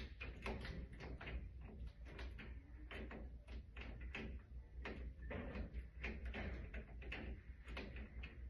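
Irregular clicks, clanks and knocks of hands and tools working a vending machine's door and lock, over a steady low hum.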